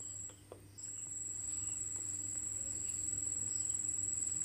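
Quiet background noise: a steady high-pitched whine over a faint low hum, with a short dropout about half a second in.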